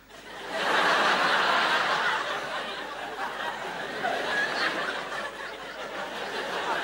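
Large audience laughing. It swells about half a second in, peaks over the next second or so, then carries on a little lower.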